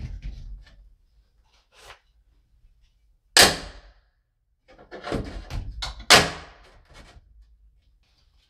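Metal breaker panel enclosure knocking against the wooden wall studs as it is set into place: several sharp thunks and rattles, the two loudest about three and a half seconds in and just after six seconds in.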